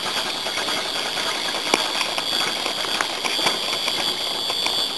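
Spinning fishing reel being wound quickly as a small bream is brought in, a fast run of small mechanical ticks. A steady high insect chorus runs underneath.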